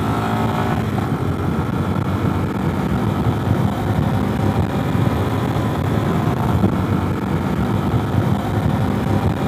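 Yamaha Serow 250 single-cylinder motorcycle engine running steadily at road speed, under a constant rush of wind noise on the microphone.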